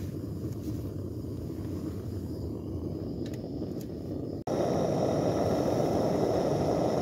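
Gas burner in a Trangia stove running with a steady rushing sound, with a couple of light metal clinks as a pan is set on it. About four seconds in, a louder, fuller bubbling rush takes over: water at a rolling boil in the pan over the burner.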